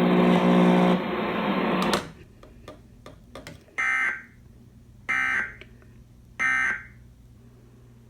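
Emergency Alert System end-of-message data signal: three short bursts of screeching digital tones, about 1.3 s apart. Before them, a loud steady buzzing tone cuts off about two seconds in.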